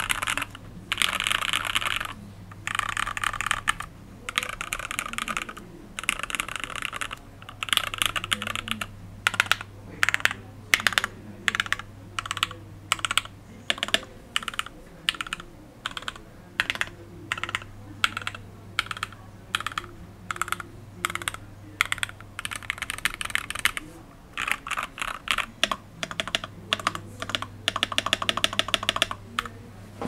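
IDOBAO ID80 mechanical keyboard with lubed and filmed Gateron Milky Top Black linear switches, acrylic bottom and foam-filled case, being typed on. Fast runs of keystrokes come at the start. Through the middle there are separate key presses about one or two a second, and fast typing returns near the end.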